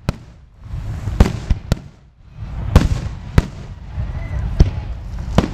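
Aerial firework shells bursting: about eight sharp bangs at irregular intervals, with a low rumble between them.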